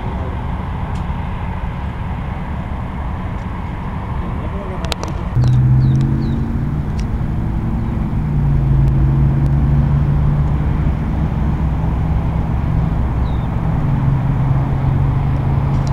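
A steady low engine rumble, with a louder steady hum setting in about five seconds in, and a few brief high chirps.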